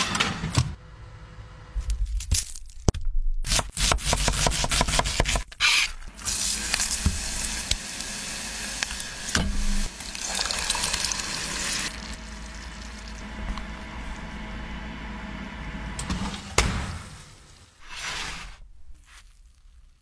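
A string of short cooking sounds: a few sharp knocks, then a quick run of taps. After that comes food sizzling in a hot pot, loudest for several seconds before settling to a softer hiss. A couple more short bursts follow near the end.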